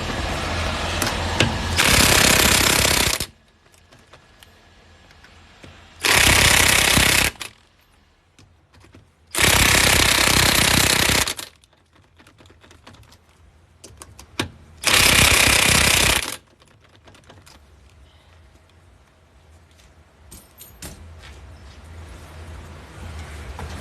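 Impact wrench hammering lug nuts tight on a car wheel, four bursts of one to two seconds each, a few seconds apart, one for each of the four remaining lug nuts.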